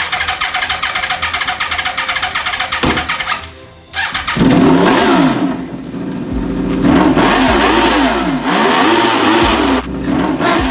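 Yamaha R1 inline-four motorcycle engine cranked over on the starter, catching about four seconds in and then revved again and again, its pitch rising and falling with each blip. Background music plays underneath.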